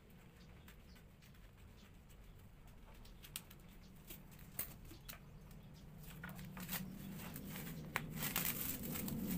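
Thin plastic hydrographic carbon-pattern transfer film and its masking-tape frame crinkling as they are handled, with scattered light clicks that become busier and louder over the last few seconds.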